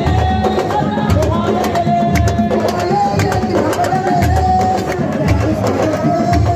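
Loud music with drums: a heavy low beat about once a second under many sharp drum strikes, with a held, wavering melody over it.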